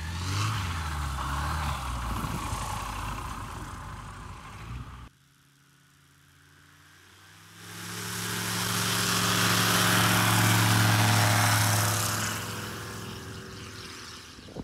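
Small single-engine STOL light aircraft's propeller engine running as the plane taxis and takes off. The sound cuts out completely for about two seconds near the middle, then swells to its loudest about ten seconds in and fades away.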